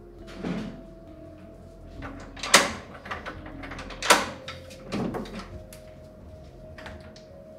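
Four knocks over soft, sustained background music. The two sharpest and loudest come about two and a half and four seconds in; the other two are duller.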